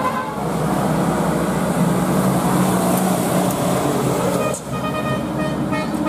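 A tour bus's engine and tyres drone loudly as it drives past. About four and a half seconds in, the sound cuts to a multi-tone telolet bus horn playing a stepped melody.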